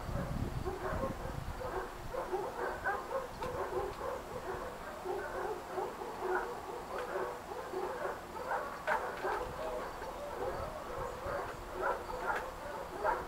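Dogs barking and yipping, a busy run of short calls with a few sharper yelps near the end.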